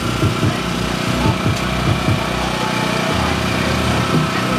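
A small engine running steadily, a constant mechanical hum.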